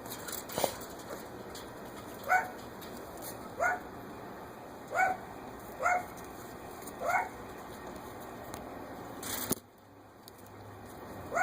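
An animal giving short, sharp pitched calls, about six of them, roughly a second apart. A brief burst of noise comes near the end.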